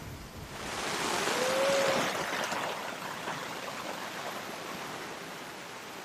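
Sea water and wind rushing past a sailing yacht running downwind in rough seas: a hissing swell that rises about half a second in, is loudest around two seconds and slowly fades.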